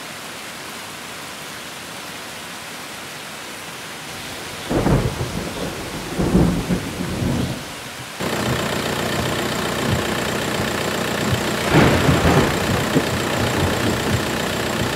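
Steady rain falling, with rolls of thunder about five and six seconds in. After about eight seconds the rain grows heavier, with another roll of thunder around twelve seconds.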